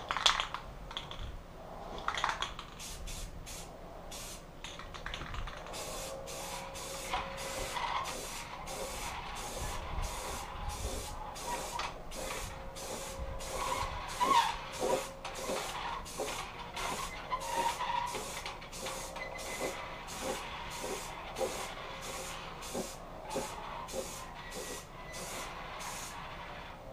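Aerosol can of primer filler spraying onto a steel motorcycle headlamp shell in many short bursts of hiss, about two a second, stopping just before the end.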